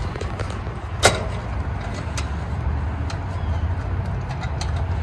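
Clicks and ticks of wire spade connectors being handled on an AC condenser's run capacitor terminals, with one sharp click about a second in, over a steady low rumble.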